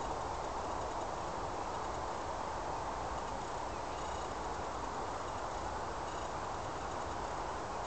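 A large flock of common starlings in a murmuration overhead: a steady, dense wash of massed chattering calls and wing noise.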